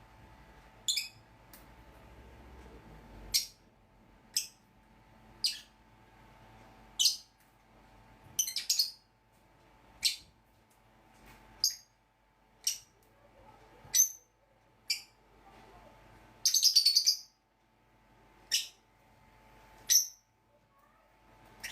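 Pet lovebirds and budgerigars calling: short, sharp, high chirps about one every second or so, with a quick string of chirps about three-quarters of the way through.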